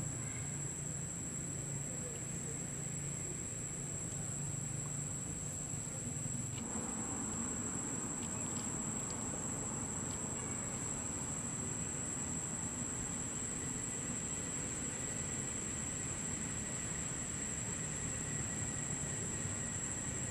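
Insects droning steadily on one high pitch, with a low hum underneath that stops abruptly about seven seconds in.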